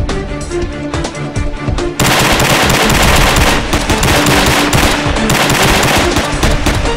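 Background music with a steady beat; about two seconds in, loud rapid-fire gunfire from a pair of pistols starts and keeps going over it as a continuous film-style volley.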